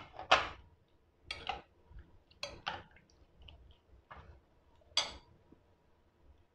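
Metal spoon clinking against a cut-glass bowl while stirring a wet chickpea, potato and onion mixture: about seven sharp, irregular clinks over the first five seconds.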